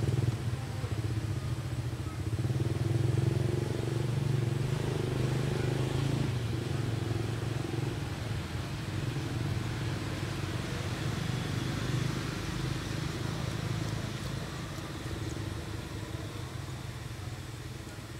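A motor vehicle engine running, a steady low hum that swells a few seconds in and then slowly dies away.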